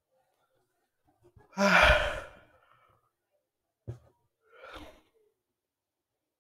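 A person sighing loudly close to the microphone, a heavy voiced breath out. It is followed by a short click and a second, quieter breath out.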